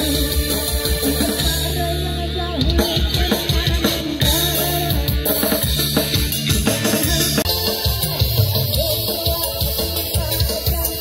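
Loud dance music with a drum-kit beat and a heavy bass line.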